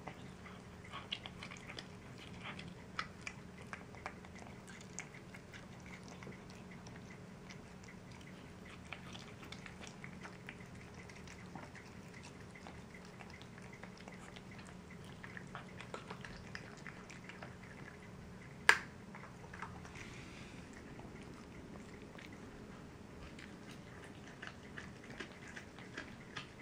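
Cats chewing and licking bone-in chunks of raw chicken leg and thigh, a run of small irregular wet clicks and crunches. One much sharper crack about two-thirds of the way in.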